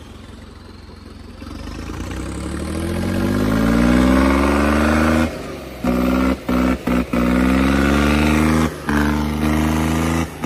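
John Deere 5210 tractor's three-cylinder diesel engine revving up over a couple of seconds and then held at high revs under heavy load, pulling against a chained tractor in a tug-of-war. About halfway through, the sound drops out abruptly several times for a moment each.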